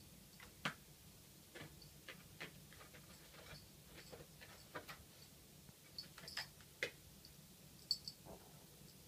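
Faint, irregular light taps and clicks as a cat paws and pounces at a moth on carpet and laminate flooring.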